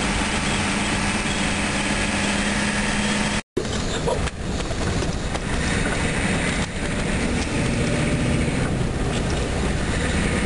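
A car driving, heard from inside the cabin: steady engine hum and road noise, broken by a sudden short dropout about a third of the way in where the recording cuts.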